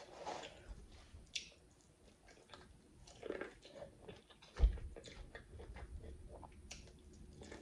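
Close-miked chewing and biting on boiled corn on the cob, with small wet mouth clicks. A single low thump a little past halfway.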